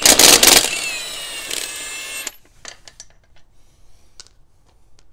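Milwaukee Fuel cordless impact wrench hammering a truck lug nut loose, then spinning it off with a steady whine that sinks slightly in pitch and cuts off about two seconds in. A few light metallic clicks follow as the nut and socket are handled.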